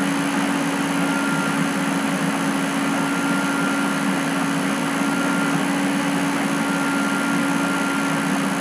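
Steady background hum and hiss with a constant low tone, like the running noise of a fan or air conditioner picked up by the recording microphone.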